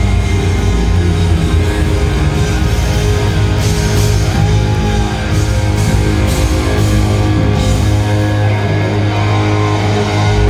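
Live hard rock band playing loud through the PA: distorted electric guitars, bass and drums, with several cymbal crashes from about four seconds in.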